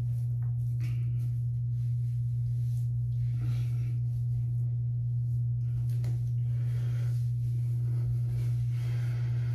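A steady low hum that holds the same pitch throughout, with only faint, scattered sounds above it.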